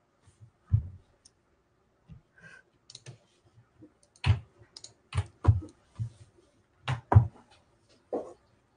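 Irregular sharp clicks, several with a soft thump beneath, of a computer keyboard and mouse being worked at a desk. The clicks come unevenly, bunched most thickly in the second half.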